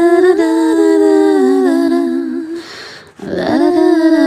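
Wordless humming of a slow melody in two-part harmony: long held notes that step up and down together. It breaks off briefly about three seconds in, then resumes.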